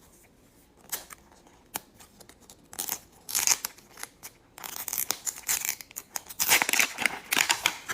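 Plastic packaging being handled and torn open: a few light clicks, then quick bursts of crinkling and tearing that get busier and louder in the second half.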